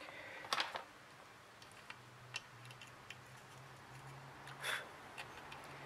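Faint clicks and handling noises of a circuit board and soldering iron being worked by hand, with two short, louder rustles, one near the start and one about four and a half seconds in. A faint low hum comes in about two seconds in.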